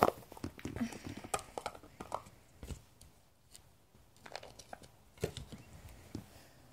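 A small plastic tub being handled and its lid taken off, giving scattered light clicks and knocks. The sharpest comes right at the start, with others about a second and a half in and again around five seconds in.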